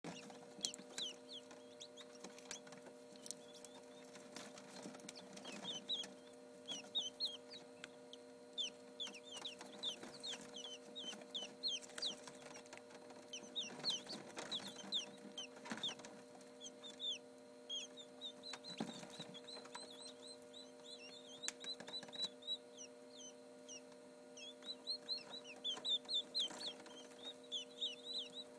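Quail chicks peeping: quick runs of short, high, falling chirps, over a steady low hum from the incubator.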